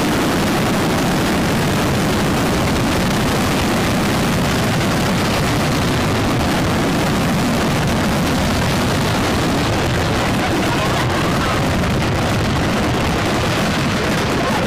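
Fireworks shells bursting all at once in a dense, continuous barrage, the explosions merging into one unbroken, steady noise with no gaps between blasts: an entire display's load ignited together by accident.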